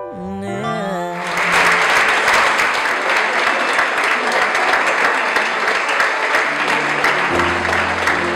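A crowd clapping and cheering, starting about a second in and going on steadily, over music; bass notes come in near the end.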